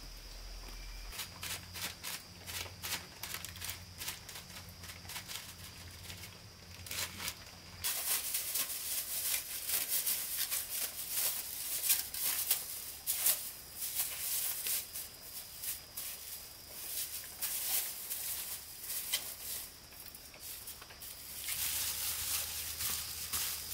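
Food-prep handling sounds: scattered clicks, taps and rustling as ingredients are handled and a spring roll filling is mixed by hand in a plastic bowl, busier from about a third of the way in.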